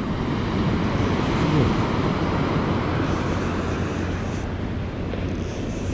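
Wind rumbling on the microphone over the steady wash of breaking surf.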